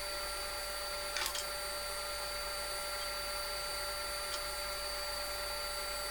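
Table saw running steadily, a constant motor and blade whine with no cut under way, and a short scrape about a second in.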